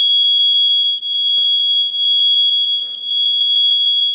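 First Alert smoke alarm's horn sounding in test mode: a loud, high-pitched tone pulsing very fast, about ten times a second, with very short off-times between pulses.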